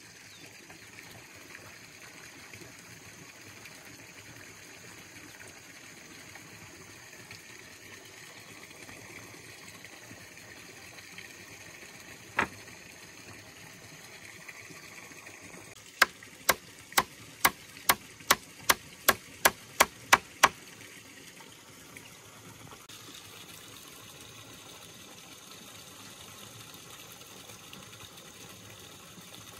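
A steady rushing noise throughout, with one sharp knock about twelve seconds in, then a quick run of about twelve sharp knocks over four and a half seconds, coming slightly faster toward the end.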